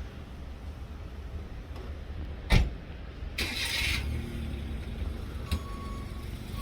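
A sharp knock, then a car engine starting and running at a steady idle.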